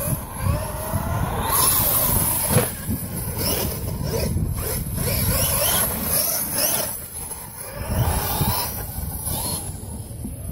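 Brushless electric motor of a King Motor X2 1/5-scale RC short-course truck running on 8S batteries. Its whine glides up and down again and again as the throttle is worked, with bouts of hiss as the truck runs over grass and path.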